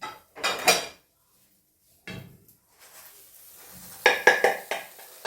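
Kitchen clatter of a plate and a frying pan being handled. Separate knocks and scrapes, with a quick run of sharp clinks about four seconds in.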